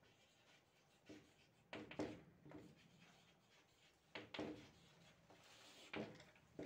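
Chalk writing on a blackboard: faint scratches and a few short taps and strokes, coming in small clusters.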